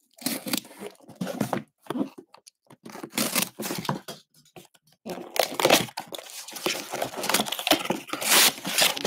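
Packing tape on a cardboard box being slit with a utility knife and torn open, with the cardboard scraping and crinkling. It comes in irregular bursts with short gaps at first, then a longer, louder stretch in the second half.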